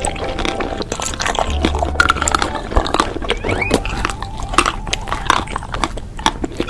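Close-miked ASMR eating sounds: biting and chewing with many short, crisp crunches and mouth clicks. A couple of short rising squeaks come about two and three and a half seconds in.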